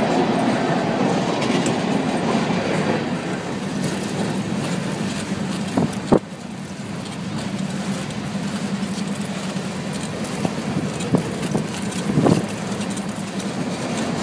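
Freight train with several diesel locomotives passing close by: a steady rumble of engines and wheels rolling on the rails. A sharp click comes about six seconds in, after which the sound is somewhat quieter.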